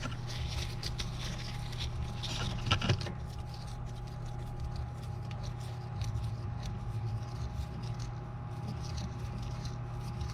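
A new outer tie rod end being turned onto the tie rod's threads, one turn after another, giving faint scraping and small clicks over a steady background hum.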